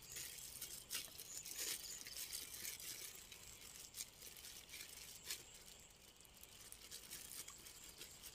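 Thin plastic bag crinkling and rustling in the hands, a faint, irregular crackle with a few sharper clicks.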